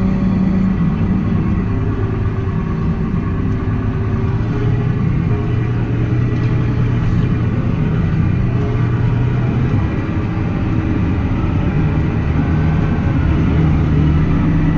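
A vehicle engine running steadily while driving, its pitch rising and falling slightly with speed.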